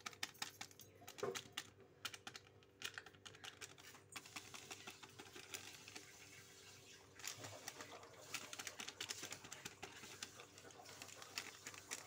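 Faint, irregular light clicks and rustles of a spoon and a plastic spice packet handled over a pressure cooker as chicken masala powder is added. The clicks come in two busy stretches with a quieter pause between them.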